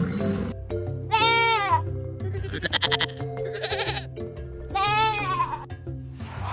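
Goat bleating about four times, each call rising and falling in pitch and one with a quavering tremble, over background music with a steady bass line.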